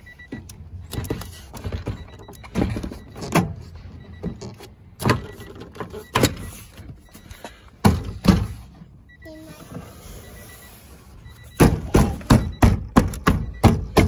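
Plastic door trim panel of a 1992 Honda Civic hatchback being fitted back onto the door: scattered knocks and snaps as it is pressed into place, ending in a quick run of knocks, about three a second.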